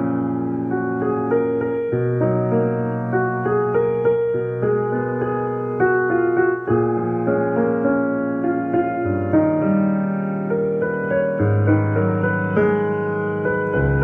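Background piano music: a melody of single notes moving over long-held low notes.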